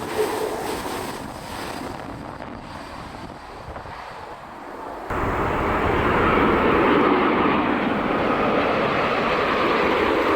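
Jet airliner engines: a Boeing 737's engine noise, which cuts abruptly about five seconds in to the louder, steady roar of a Boeing 787 Dreamliner's engines.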